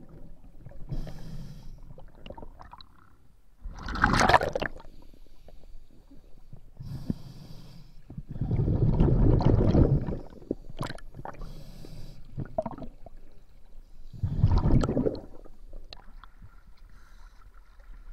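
Scuba diver breathing through a regulator underwater: hissing inhalations, each followed by a louder rush of bubbling exhalation, about three breaths.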